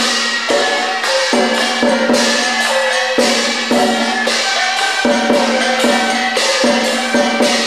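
Buddhist ceremonial music: a held low tone under a slowly stepping melody, with regular sharp percussion strikes like a wood block and jingling hits.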